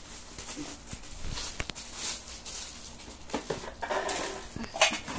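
Thin plastic bag crinkling and rustling in bursts as a plastic food-container box is handled and slid into it, with a sharp crackle a little before the end.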